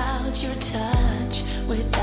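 A woman singing a slow Christmas pop ballad with a live band, her voice bending through runs over held keyboard and bass tones, with a deep drum hit about a second in.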